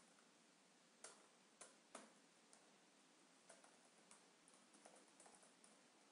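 Faint, irregular keystrokes on a computer keyboard, single clicks at first and then a quick run of them about five seconds in.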